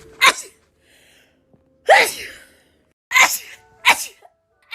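A person sneezing strong, rapid, uncovered sneezes: four sharp sneezes, the first standing alone, then one about halfway through, then two close together near the end.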